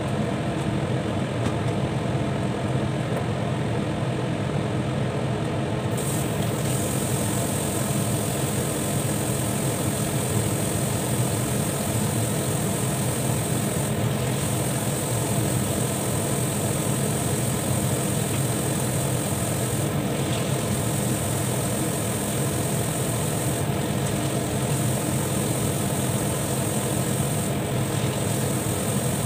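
Covered pot of vegetable curry cooking on the stove, with a steady low bubbling rumble under a glass lid. A high hiss joins about six seconds in and cuts out briefly a few times.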